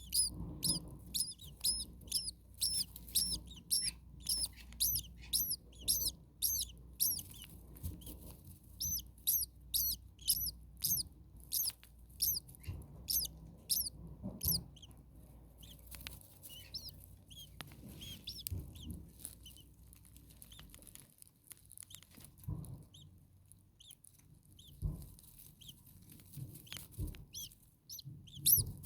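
Starlings calling: a rapid series of short, high, down-slurred chirps, about two a second, thinning out to scattered chirps after the middle.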